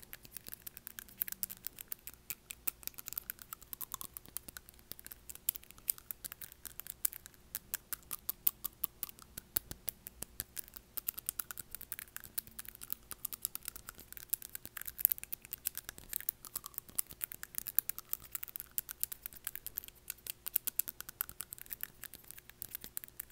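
Long acrylic fingernails tapping rapidly on front teeth, a continuous run of sharp little clicks, picked up close to the mouth by a wired earphone's inline mic.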